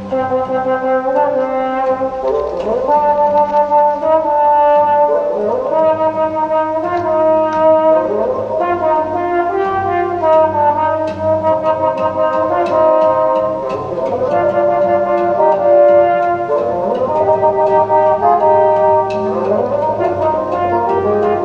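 Live chamber ensemble music led by a trombone playing a melody, with several upward slides between notes.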